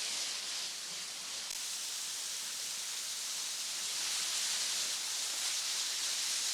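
Steady rush of a waterfall, heard as an even hiss.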